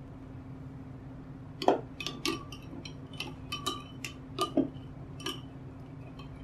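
Metal spoon clinking against a glass tumbler while stirring yeast into lukewarm water: a run of about a dozen light, irregular clinks, starting about one and a half seconds in and stopping shortly before the end.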